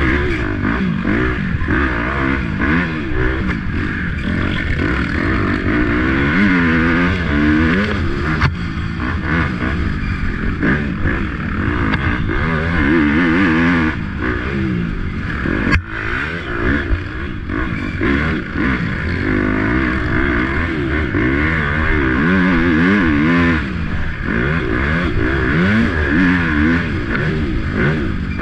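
Racing dirt bike engine being ridden hard, its pitch rising and falling over and over as the throttle is opened and shut, with steady rushing noise throughout. Two sharp knocks stand out, one about a third of the way in and one near the middle.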